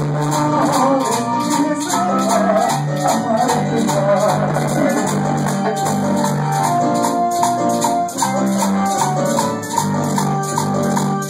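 Live dance band playing: electronic keyboard melody over a steady repeating bass line, with timbales and an even, driving percussion rhythm.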